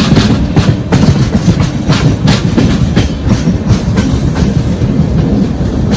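Indian express passenger train running at speed: a steady low rumble of the coaches with frequent irregular clacks of the wheels over the rail joints, heard close from an open coach doorway.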